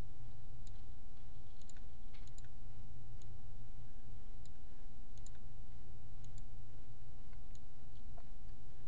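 Scattered computer-mouse clicks over a steady low hum, as field mappings are picked from drop-down menus.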